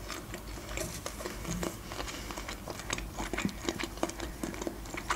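Close-miked chewing of shrimp: soft, irregular wet mouth clicks and smacks.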